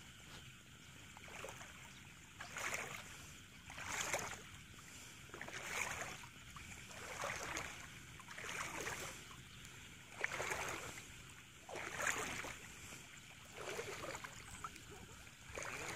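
Wading through shallow floodwater: splashing and sloshing in a steady rhythm, about one surge every one and a half seconds.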